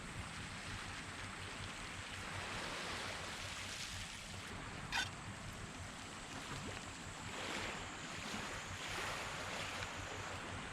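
Small waves washing onto the beach, a steady hiss that swells and falls back every few seconds, with a single sharp pop about five seconds in.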